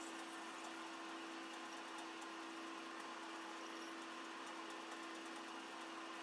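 Metal lathe running steadily while a twist drill in the tailstock feeds into a spinning metal part: an even motor hum with a faint high squeak or two from the cut during the first four seconds.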